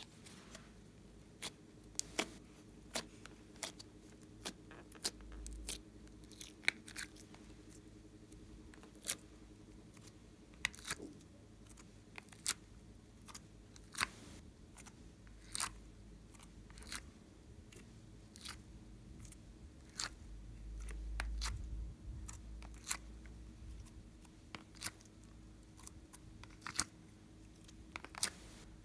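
Plastic ice cube tray clicking and crackling as it is flexed and blocks of slime are popped out of its cells, in irregular sharp snaps with a soft handling rumble now and then.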